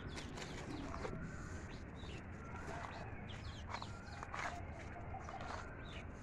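Outdoor ambience with scattered short bird chirps and calls, roughly one every second, some rising or falling in pitch, over a steady low background rumble.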